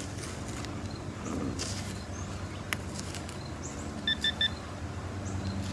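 Metal detector giving three quick beeps about four seconds in, signalling metal under the coil, over a low steady hum.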